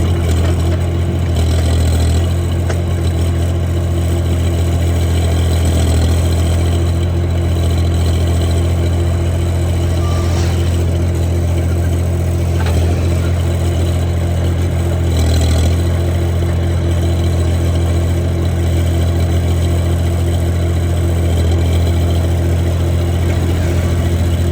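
Diesel engine of a mini backhoe loader running steadily, its note swelling briefly a few times.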